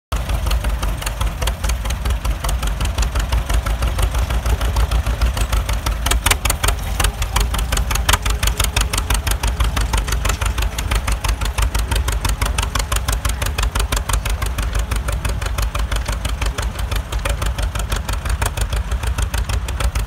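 A vintage John Deere two-cylinder tractor engine pulling a mounted plough through the soil under load, with a rapid, even exhaust beat.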